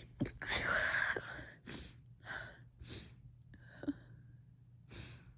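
A woman's stifled sneezing fit: a muffled, held-back sneeze about half a second in, the loudest sound, followed by a string of short breathy gasps every half second or so as the tickle builds again.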